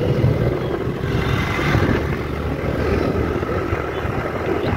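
Motorbike riding along a street: its engine running with a steady low rumble of road and wind noise.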